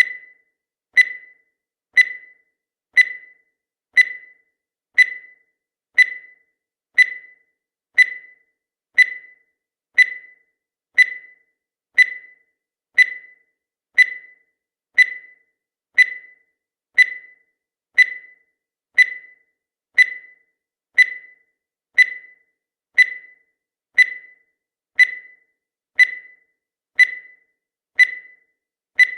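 Countdown timer sound effect: a short high-pitched electronic beep once a second, each fading quickly, marking off the seconds.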